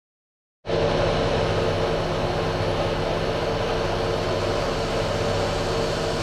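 Engine running steadily with a constant hum, cutting in abruptly about half a second in after dead silence.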